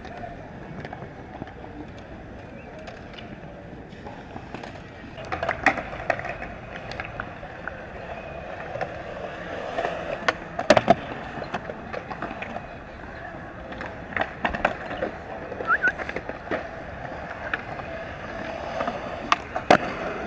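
Skateboard wheels rolling steadily, broken by several sharp clacks and slaps of the board striking the ground; the loudest comes about eleven seconds in.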